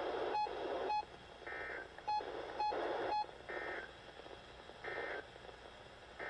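Weather radio receiver sounding the NOAA Weather Radio end-of-message data bursts that close the weekly test: two sets of three short buzzing bursts. A short electronic beep repeats four times, about every second and a half.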